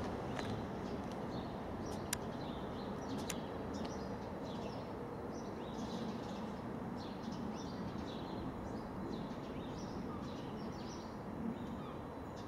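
Small birds chirping in short repeated calls over a steady low background rumble, with two sharp clicks about two and three seconds in.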